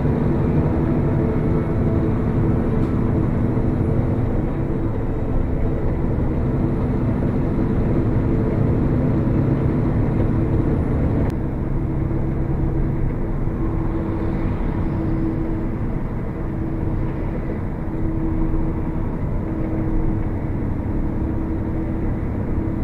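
Steady engine drone with several held humming tones; the sound changes abruptly about eleven seconds in.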